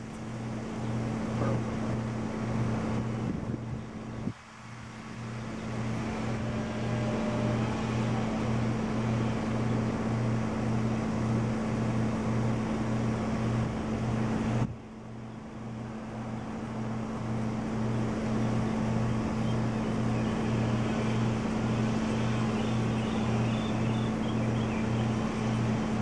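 Steady low hum pulsing about twice a second over wind noise on the microphone, with two sudden dips in level, about 4 and 15 seconds in; no peacock call.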